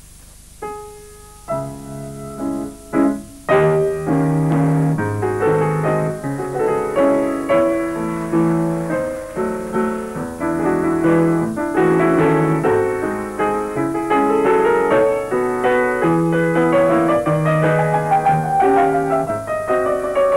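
Solo grand piano. It plays a few soft, spaced chords, then from about three and a half seconds in a fast, loud stream of notes, with a falling run near the end.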